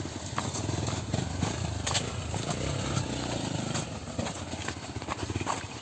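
Motorcycle engine running while the bike rides over a rough, rocky track, with scattered knocks and clicks.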